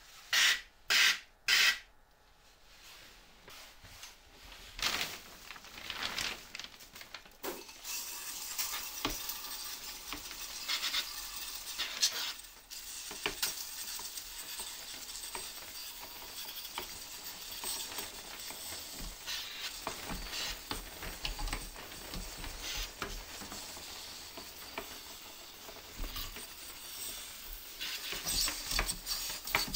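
Three quick squirts from a spray cleaner about half a second apart. Then a long stretch of hissing and rubbing with scattered small clicks as the air conditioner is worked on.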